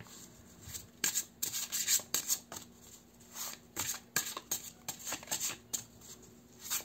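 A deck of glossy tarot cards from the pocket-edition Osho Transformation Tarot being shuffled by hand, overhand style. The cards slide and rub against each other in bursts of quick strokes, with short pauses between the bursts.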